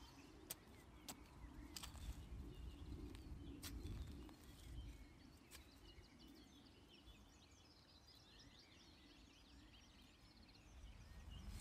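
Near silence: faint scraping and a few sharp clicks of a Nisaku gardening knife digging into soil in the first few seconds, then faint distant birdsong.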